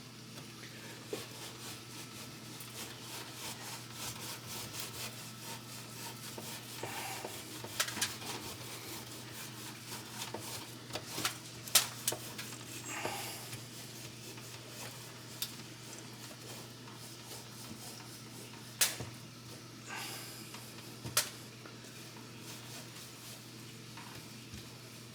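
A rag scrubbing a greasy metal range hood with a baking-soda paste, a continuous rubbing and scraping with a few sharp taps, the loudest about twelve seconds in. A steady low hum runs underneath.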